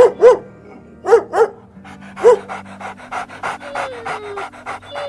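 An animal gives five short, loud, arched calls, then quick breathy puffs at about four a second. A falling tone of background music sounds under it.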